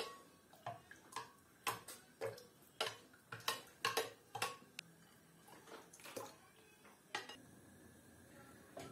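Metal spoon stirring liquid in a glass bowl, clinking against the glass about twice a second, then stopping about six seconds in, with one more clink a second later.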